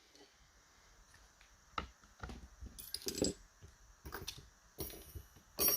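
Small metallic clicks and rattles of a pick and tension tool working the pins of a TESA T-12 two-row pin-tumbler cylinder. They start after a short hush, come irregularly, and the loudest click falls near the end.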